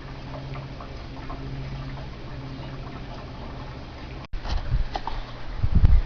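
Faint clicks and taps of small parts being handled over a steady low hum. About four seconds in the sound cuts out for an instant, and louder knocks and rubbing follow, loudest near the end.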